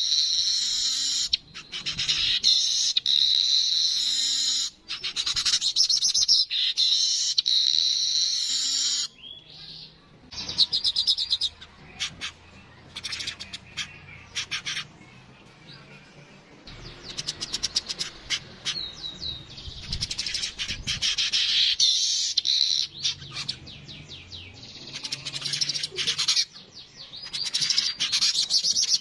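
Yellow-headed manyar (weaver bird) singing: long runs of dense, high chattering, broken by a quieter stretch of short, rapid ticking notes in the middle, then chattering loudly again near the end.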